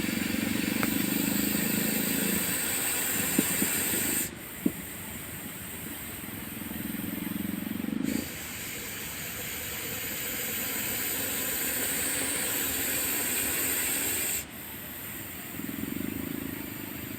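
Russell's viper hissing: long, loud hisses lasting several seconds each, which break off sharply and build up again, three times through.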